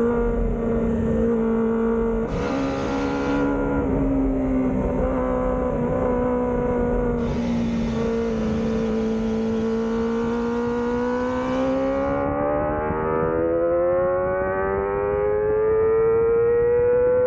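Kawasaki ZX-25R's 250cc inline-four engine at racing speed, with wind rushing at the microphone. It holds a steady pitch, then from about ten seconds in climbs steadily in pitch as the bike revs harder and accelerates.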